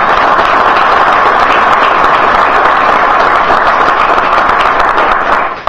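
Audience applauding steadily, a dense crackle of many hands clapping, that dies away at the very end. It is applause for a speaker who has just finished.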